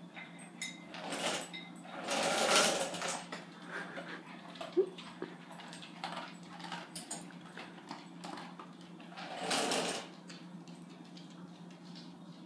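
Two small salvaged printer DC motors of a homemade Arduino robot whirring in short bursts as it drives and turns on its wheels: about a second in, for about a second from two seconds in, and again near ten seconds. A steady low hum runs underneath.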